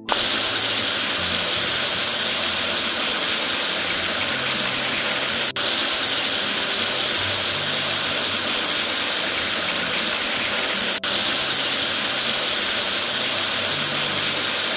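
A loud, steady hiss of spraying water, a looped sound effect that breaks off for an instant about every five and a half seconds, over soft background music with a low stepping tune.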